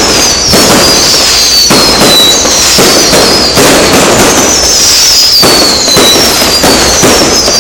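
Fireworks going off close by: very loud, dense crackling and popping, with high whistles that fall in pitch and come again every second or two.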